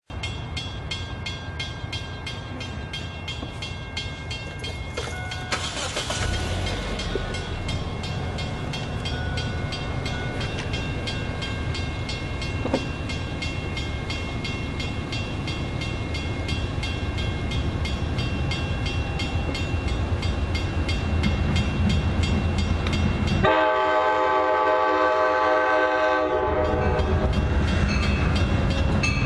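Amtrak Shuttle train approaching, its rumble growing steadily louder, with a fast, even high-pitched ringing over it. The train's horn sounds one steady chord about 23 seconds in, lasting about three seconds.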